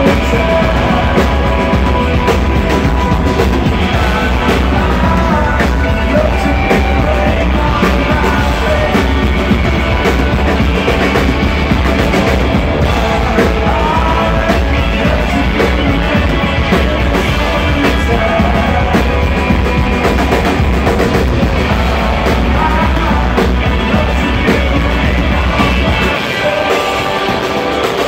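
A live rock band playing loudly: electric and acoustic guitars, drums and a singing voice. The deep bass drops away a couple of seconds before the end.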